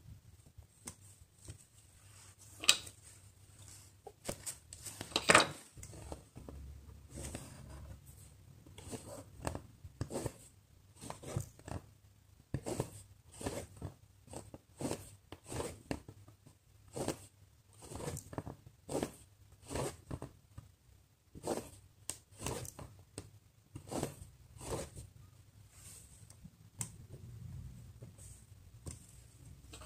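Cross-stitch needle piercing Aida fabric and embroidery floss being drawn through it: short scratchy pulls, repeating roughly once a second. Two sharper clicks, the loudest sounds, come in the first few seconds.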